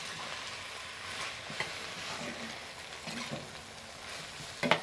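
Chopped tomatoes, onion and serrano chiles sizzling in hot oil in a clay cazuela, stirred with a spoon that scrapes and taps against the pot. A sharper knock comes near the end.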